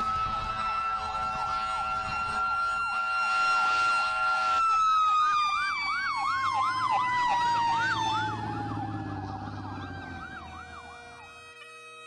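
Emergency vehicle sirens sounding together: one holds a steady high tone that slowly falls in pitch from about four seconds in, while another sweeps up and down about twice a second. The sirens fade out near the end.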